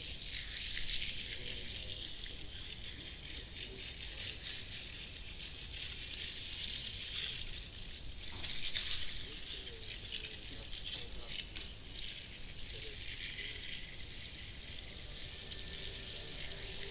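A dense, high-pitched rattling and crackling texture, made of many fine dry clicks, that swells about a second in and again around eight to nine seconds in.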